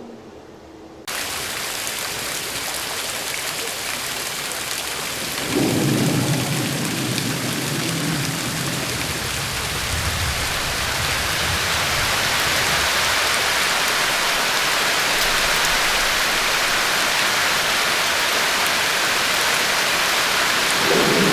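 Heavy rain, a dense steady downpour that cuts in suddenly about a second in, with a low thunder rumble about five seconds in and another near the end.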